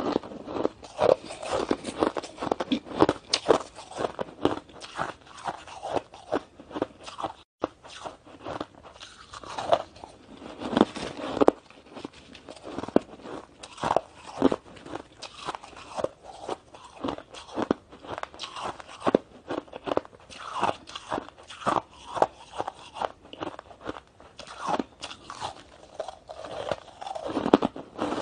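Shaved ice being crunched and chewed in the mouth: a steady run of irregular, quick crunches.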